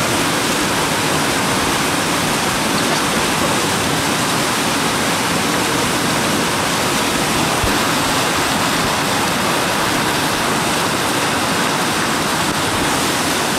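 Whitewater river rapids running loud and steady: a continuous rushing of churning water.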